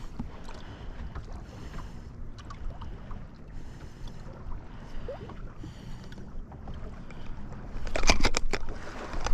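Low steady hum with faint water and wind noise aboard a fishing boat. Near the end comes a loud flurry of knocks and rattles as a freshly caught smallmouth bass flops about while being handled.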